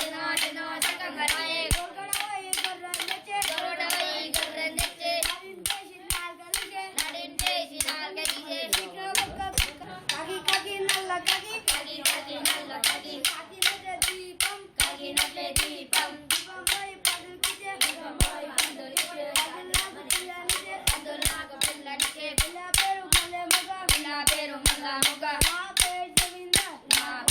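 Children singing a Telugu folk song (Jajiri/Kolatam song) in unison, kept in time by sharp rhythmic claps of hands and kolatam sticks at about two to three a second, quickening near the end.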